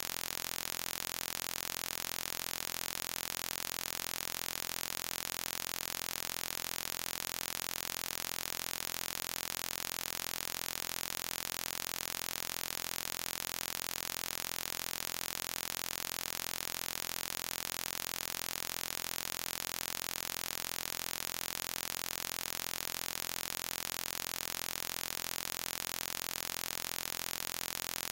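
Steady hiss of electronic static, unchanging throughout, with no distinct sounds standing out from it.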